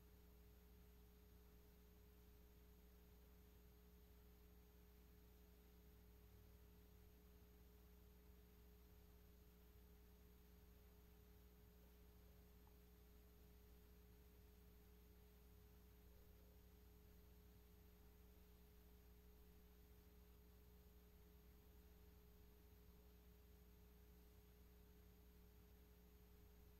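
Near silence: room tone with a faint steady hum and a thin high whine, nothing changing.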